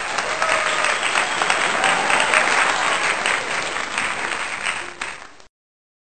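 A large crowd clapping, dense and loud, which cuts off suddenly about five and a half seconds in.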